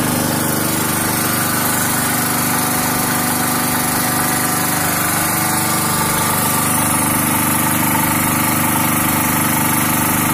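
Fireman SPG2500 generator's single-cylinder 5.5 hp four-stroke engine running steadily at governed speed on LPG through an aftermarket dual-fuel carburettor, loaded by a 1500-watt electric kettle.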